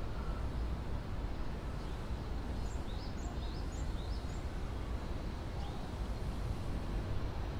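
Steady city-square background rumble, with a bird chirping several short, quick rising notes a few seconds in.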